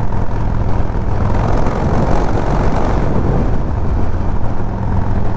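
Harley-Davidson Sportster 1200 Forty-Eight's air-cooled V-twin running at a steady cruising speed on the highway, under a constant rush of wind noise.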